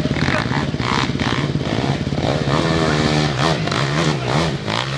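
Dirt bike engine running hard as the bike climbs a steep dirt hill, the note held steady and then wavering up and down with the throttle in the second half.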